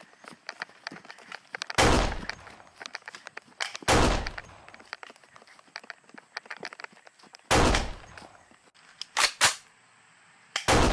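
Pistol gunshots: six loud, sharp bangs at uneven intervals, two of them in quick succession near the end, with light footsteps and rustling in between.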